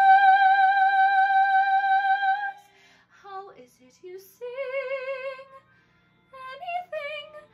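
A woman singing solo in a classical musical-theatre style. She holds a high note with vibrato for about two and a half seconds, then sings several shorter phrases with vibrato, with brief pauses between them.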